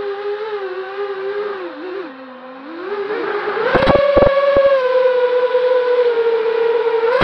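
FPV quadcopter's electric motors whining, the pitch dipping and rising with the throttle, then climbing to a higher, steadier whine about four seconds in as the drone lifts off. A few sharp knocks come around the same moment.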